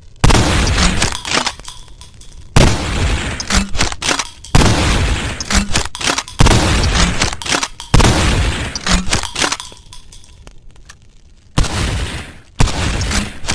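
Sawed-off shotgun firing: about seven shots at irregular gaps of one to four seconds, each a sharp report followed by a long fading tail.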